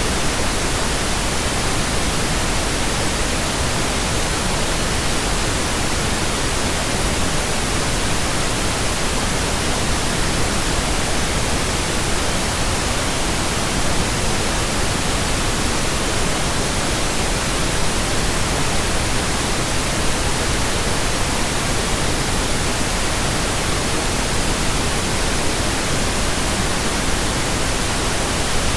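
Steady pink noise: an even, unchanging hiss with no tones, breaks or shifts in level.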